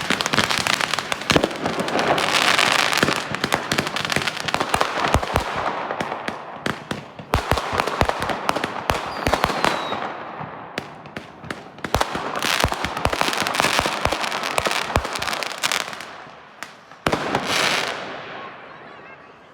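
Fireworks going off: dense crackling with many sharp bangs, a last burst a couple of seconds before the end, then dying away.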